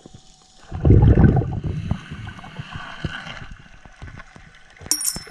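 A scuba diver's exhaled bubbles gurgling out of the regulator underwater, a loud burst about a second in that fades to a softer bubbling. A brief high-pitched tone sounds near the end.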